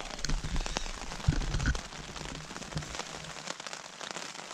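Irregular taps of water drops on the ultralight tent's fabric, heard from inside, over a light steady hiss. There are a few low thumps and rustles of movement inside the tent between about one and two seconds in.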